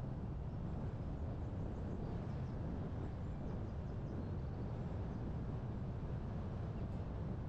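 Steady low rumble of a car driving: wind and road noise on the camera's microphone.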